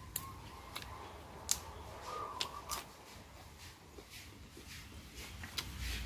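Crisp snaps and crunches of raw vegetables, long bean pods broken by hand and bitten and chewed. About six sharp cracks are spread through, with quiet pauses between them.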